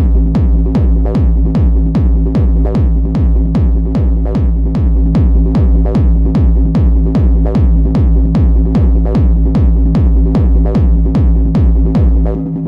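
Hard techno: a heavy kick drum on every beat, about two and a half kicks a second, over a steady bass drone. The full beat drops in abruptly right after a spoken-sample break.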